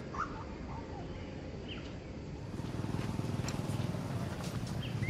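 Outdoor background noise: a steady low rumble that grows louder about halfway through, with a few short high chirping calls and faint clicks over it.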